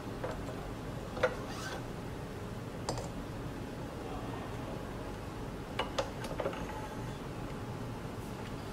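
Optical mounts being handled on a metal optical rail: a few short clicks and knocks as a post holder and rail carrier are moved and set down, the loudest about a second in and a cluster near six seconds, over a steady low hum.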